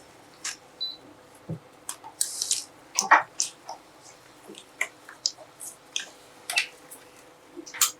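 Scattered small clicks, taps and short scrapes at irregular intervals, with a longer rustling scrape about two seconds in: hand work fitting a new IPM to the heatsink of an inverter AC circuit board.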